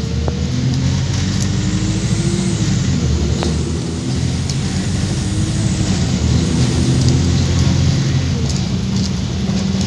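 Interior sound of a Wright StreetLite Max micro-hybrid bus pulling away and accelerating: diesel engine and drivetrain running loud, with a whine that climbs in pitch and drops back several times as the automatic gearbox changes up. The gearbox is one the owner says sounds dodgy and in urgent need of replacement.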